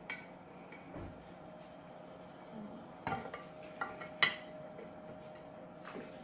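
Salad servers knocking and clinking against white ceramic serving dishes as salad is lifted from a bowl onto a plate: a few light, scattered clinks, the loudest about four seconds in.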